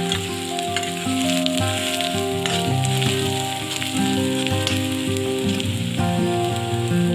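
Sliced onions sizzling and crackling in hot oil in a steel kadhai, stirred with a spatula as they fry towards brown. Background music plays under the sizzle.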